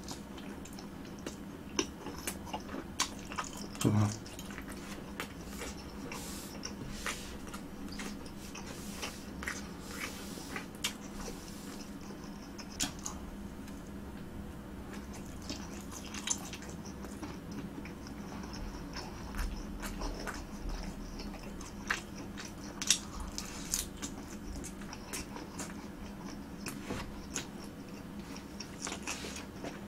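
Close-miked chewing and biting of sauced sotteok sotteok skewers (sausage and rice cake), with many short wet mouth clicks. There is one louder low mouth sound about four seconds in.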